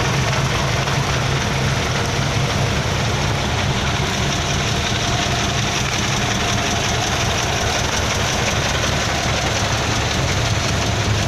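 Engines of loaded dump trucks running steadily at low speed, a deep even hum with no breaks.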